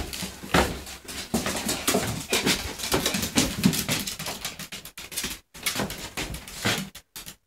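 Dog whimpering, over a run of short taps and scuffs on the hardwood floor.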